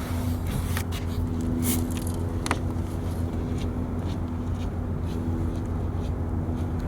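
A vehicle engine running steadily with an even hum, with a few light clicks and knocks over it.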